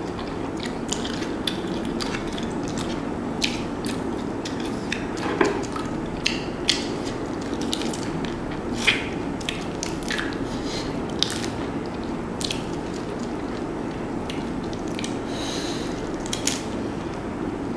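Close-up eating sounds from a shrimp seafood boil: wet chewing, lip smacks and sucking on sauce-coated shrimp and fingers, heard as many sharp irregular clicks. Near the end a shrimp shell crackles as it is peeled by hand. A steady low hum runs underneath.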